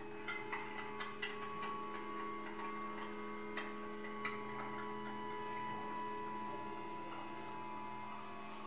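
Improvised experimental music on amplified self-made instruments: a steady drone of several low held tones, a higher held tone coming in about a second in, and scattered small clicks and ticks in the first half.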